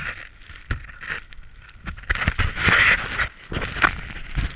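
Handling noise from a hand-held action camera being moved about: scattered knocks and rubbing against gloves and jacket, with a louder rush of noise about two to three seconds in.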